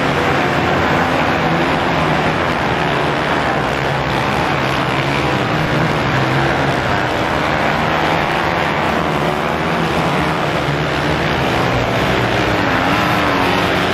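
A pack of motocross dirt bikes racing together, many engines running hard at once in a loud, continuous mass of sound whose pitches waver up and down.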